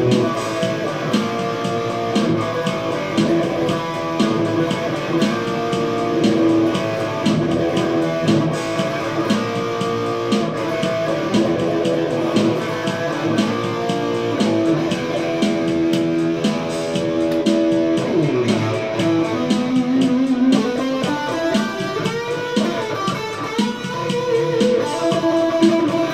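Electric guitar played through an amplifier in an improvised jam: melodic lines with held notes over a steady pulse.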